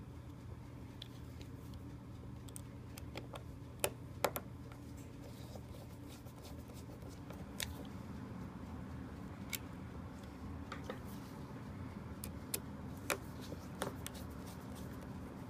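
Scattered small clicks and ticks of a screwdriver and screws against a laptop hard drive's metal caddy as the caddy screws are driven back in, over a faint low hum. The two sharpest clicks come close together about four seconds in.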